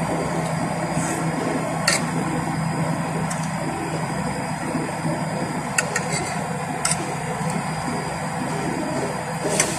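A metal spoon clicks against a plate several times: once about two seconds in, a few times around the middle, and again near the end. Under it runs a steady low hum with background noise.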